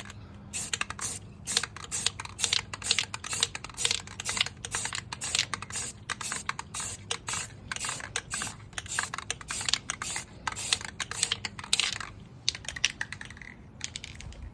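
Aerosol spray-paint can hissing in short, quick bursts, about two a second, as the nozzle is pressed and released repeatedly to lay down an even coat on a wheel rim. The bursts stop about two seconds before the end.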